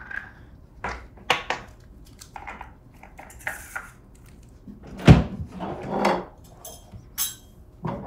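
Irregular soft knocks, rustles and creaks of hands massaging a patient's back on a treatment table, with one louder thump about five seconds in.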